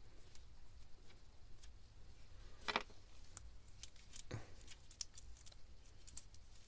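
Faint small metal clicks and scrapes of a hand tool working the cover screws on a Yanmar 3YM30's raw-water pump, with a louder scrape nearly three seconds in and another a little after four seconds.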